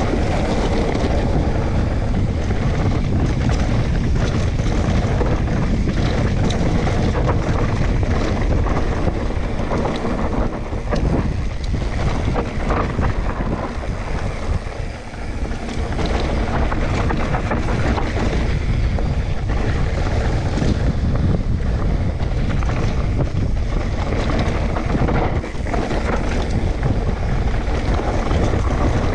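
Wind buffeting the microphone, a steady loud rush heaviest in the low end, with a brief lull about halfway through.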